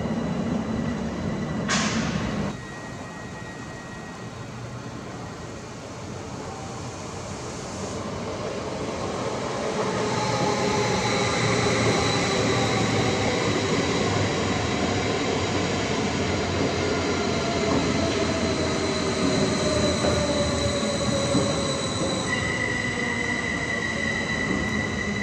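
Electric train pulling into a station and braking: a high wheel and brake squeal over a whine that slides down in pitch as the train slows. A steady high squeal sets in near the end.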